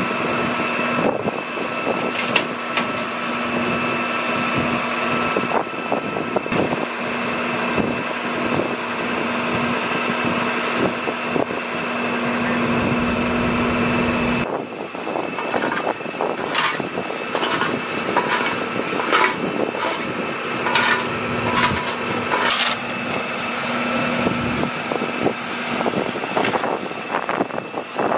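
Heavy truck engine idling with a steady hum. After a sudden cut about halfway, there are repeated sharp scrapes and clatters of crash debris being swept off the pavement, with the engine still running underneath.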